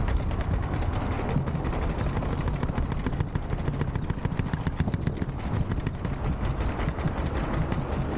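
Mountain bike rattling and knocking as it rides down concrete steps: many sharp, irregular knocks from the tyres dropping off each step, over a steady low rumble.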